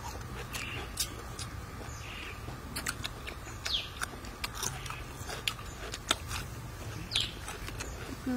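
Chewing of braised pork offal, with many irregular sharp, wet mouth clicks and smacks.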